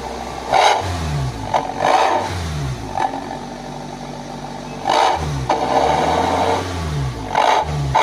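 Petrol van engine blipped repeatedly through a full stainless steel aftermarket exhaust tuned for a deep growling ('ngorok') note. It rises and falls back to idle several times, with one longer rev about midway.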